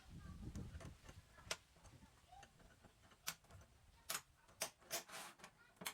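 Faint, irregular sharp clicks and taps, about half a dozen spread over a few seconds, one a little longer and scraping, just after the fifth second.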